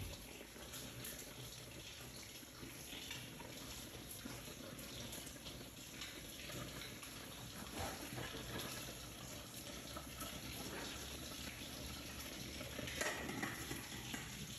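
Steady watery hiss with scattered light clinks, and a louder clatter about 13 seconds in.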